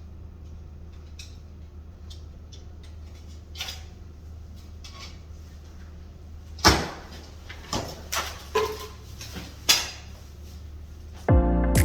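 A handful of sharp knocks and clunks of things being handled and shut, over a steady low hum. Music starts just before the end.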